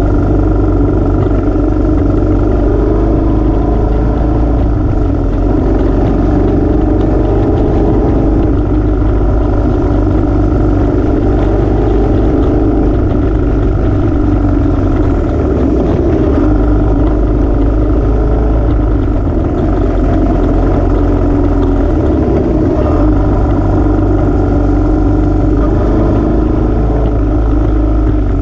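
Royal Enfield motorcycle engine running steadily at cruising speed on a winding road, heard from a camera on the bike itself, with a steady rush of road and wind noise; the engine note shifts slightly a couple of times along the way.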